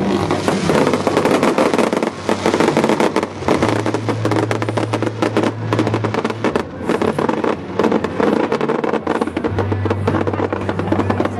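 Aerial fireworks display going off in a dense run of rapid bangs and crackles, with music playing underneath and low bass notes held for a few seconds at a time.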